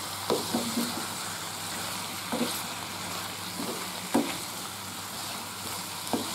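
Sliced bitter melon stir-frying in a metal pan: a steady sizzle, with the spatula scraping and knocking against the pan every second or so.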